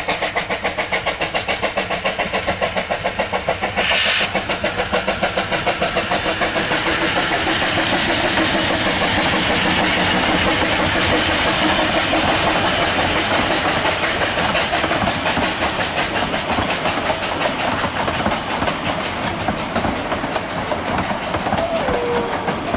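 Narrow-gauge steam tank locomotive No. 762 working hard up a 1 in 50 gradient, its exhaust beating in an even rhythm of about four to five chuffs a second. There is a short hiss about four seconds in. Near the end the beats blur as the carriages roll past.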